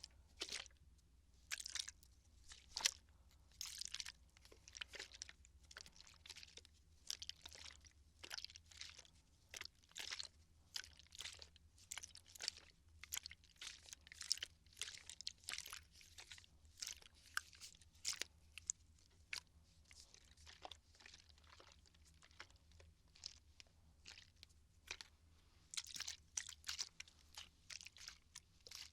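Water bottle handled close to the microphone, crackling and crinkling in quick, irregular strokes.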